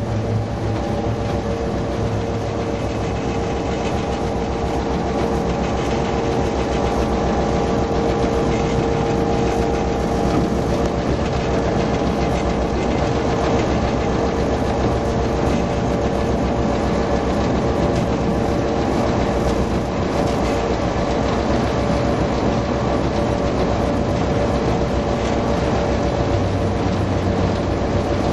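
EMD GP9 diesel-electric locomotive's 16-cylinder 567 engine running steadily under way, heard from inside the cab with a steady humming tone. The rumble of the wheels on the rails runs beneath it.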